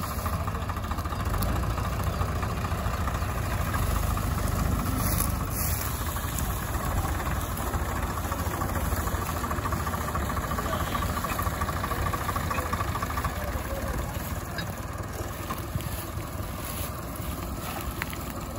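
Diesel farm tractor engines, a red Mahindra and blue Swaraj 744s, running steadily with a low rumble, a little louder a few seconds in.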